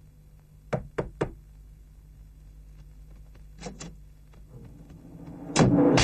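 Three quick knocks on a door, about a quarter second apart, then two fainter clicks a few seconds later; in the last half second loud film music and voices burst in.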